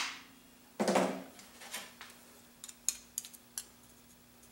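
A hammer blow on the bent steel power-feed shaft clamped in a bench vise, struck to take out the last slight bend, lands about a second in with a short metallic ring. A few lighter knocks and small metal clicks follow as the tools are handled.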